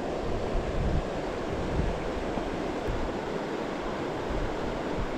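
Steady rushing of a fast mountain creek, with wind buffeting the microphone in uneven low gusts.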